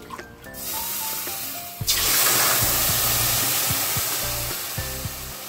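Water poured into a hot kadhai of sugar browning in ghee hisses and sizzles, starting about half a second in, growing loudest at about two seconds and slowly dying down.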